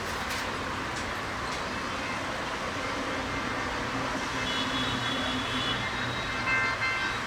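Train running noise: a steady rumble and rush with a few clicks in the first second and a half, and thin high tones joining about halfway through.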